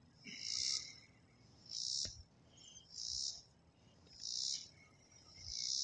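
An insect chirping: five short, high, buzzy chirps, evenly spaced about a second and a quarter apart.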